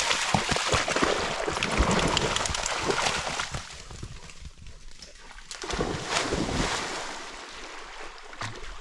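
Dogs splashing as they wade and swim through muddy pond water. A long run of splashing is followed by a quieter spell, then another burst of splashing about six seconds in.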